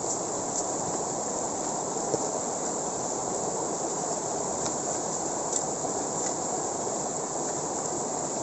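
Steady rush of flowing river water, with a few faint clicks over it.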